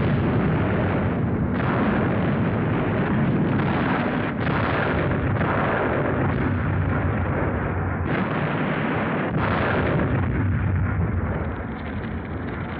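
Dense, continuous din of explosions and anti-aircraft gunfire in a night air raid, with a fresh blast every second or two. It eases slightly near the end.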